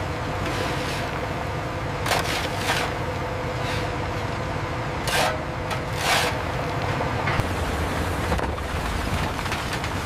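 Shovels scraping and crunching into loose ore, several short strikes at uneven intervals, over a steady low rumble of heavy machinery.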